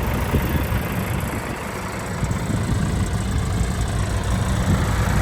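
John Deere 310D backhoe loader's four-cylinder diesel engine idling steadily while warm after about 15 minutes of running. The speaker says it runs good, with no blow-by.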